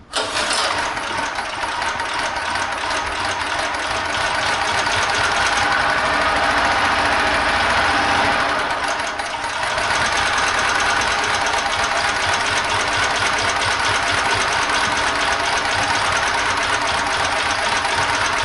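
Portable generator's small engine running with a rapid knock from a damaged connecting-rod bearing, dipping briefly about halfway. It runs weak, without power, having also lost compression.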